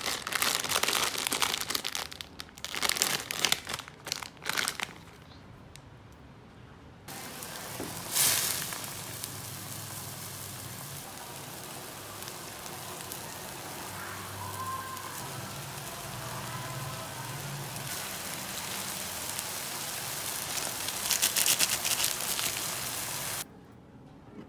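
Plastic instant-noodle packet crinkling and rustling in the hands for the first few seconds. A few seconds in, a steady hiss of noodles cooking in a pot takes over while sauce is poured in, until it cuts off suddenly near the end.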